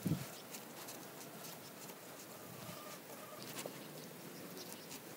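Faint soft scraping and small ticks of a knife and fingers working soft, charcoal-roasted eggplant flesh out of its skin on a wooden board, with a light knock at the start.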